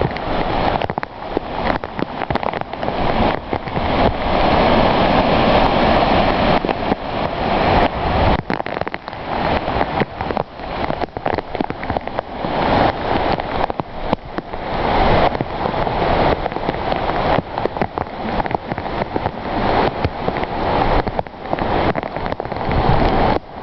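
Rain on a moving car and the rush of the wet road, heard from inside the car: a dense, loud hiss that swells and dips irregularly.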